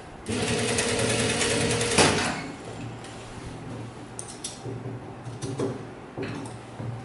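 Industrial lockstitch sewing machine running at a steady speed for about two seconds as it sews, then stopping with a sharp knock. A low hum continues underneath, and a few light clicks follow as the fabric is handled.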